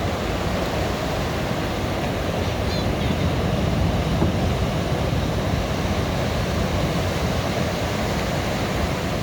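Sea waves washing onto the shore: a steady rush of surf that swells a little a few seconds in.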